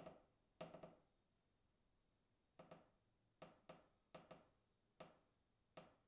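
A distant wooden beam creaking in a series of short creaks, some in quick pairs, each dying away with a short echoing tail.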